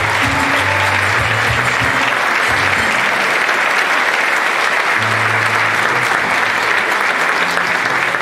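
Theatre audience applauding steadily, over music whose low notes drop out for a few seconds and come back about five seconds in.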